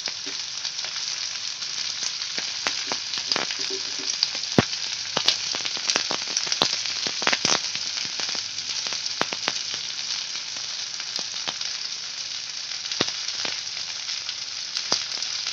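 Sliced onions frying in a little oil in a kadhai: a steady sizzle with scattered crackling pops, a few louder pops in the first half.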